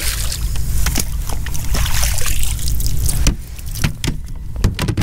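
Water splashing as a released tautog drops off a measuring board into the sea, then knocks and clatter of the hard plastic measuring board being handled and laid down in the kayak, over a steady low rumble.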